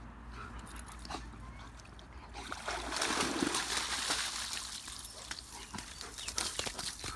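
A German Shepherd splashing out of shallow water, a loud rush of splashing about two and a half seconds in, followed by a run of small slaps and knocks as the dogs move about in the wet mud of the bank.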